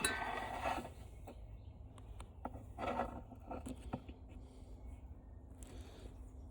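Hand tools prying at a floor fan's plastic gearbox housing: a scrape at the start and another about three seconds in, with scattered small clicks and taps of metal on plastic.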